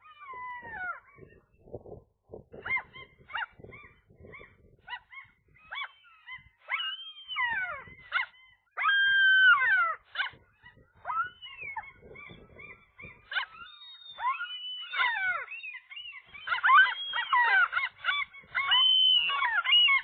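Common gulls calling over and over, long mewing calls that slide down in pitch mixed with short yelping notes, growing denser and louder near the end. It is the incubating gull calling for its mate to come and take over the eggs.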